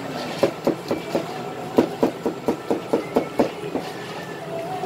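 Rhythmic wet slapping and squelching of hands working raw chicken pieces and flour in a stainless steel bowl, about four slaps a second, easing off about three and a half seconds in.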